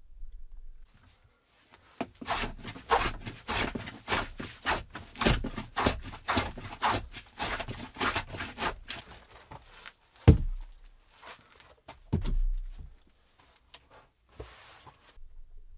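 Hand work on wooden boards: a quick run of scraping strokes, about three a second, then two heavy wooden thuds a couple of seconds apart.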